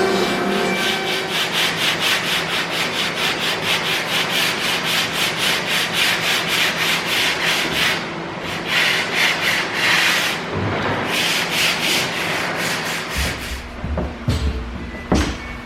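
Hand sanding the edge of 1/2-inch marine plywood in rapid, even back-and-forth strokes, rounding the edges over. A few knocks near the end.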